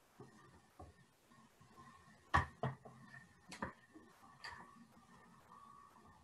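A few sharp clicks and light knocks of handling over faint room tone; the loudest come about two and a half and three and a half seconds in.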